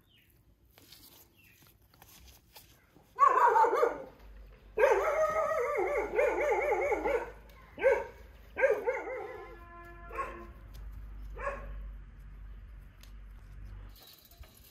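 A dog barking: a first short bout about three seconds in, then a longer run of barks from about five to seven seconds, followed by a few shorter, fainter barks.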